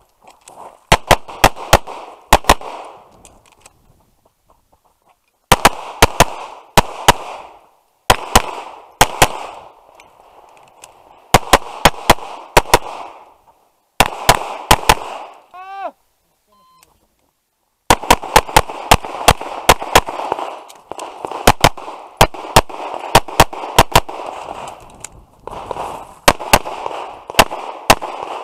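Tanfoglio Stock 2 pistol firing fast pairs and strings of shots, each with a short echo, broken by short pauses and two brief silent gaps.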